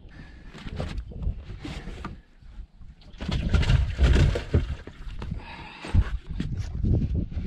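Water splashing and knocking as a hooked bass is landed over the side of a bass boat. The splashing is loudest about three to four seconds in.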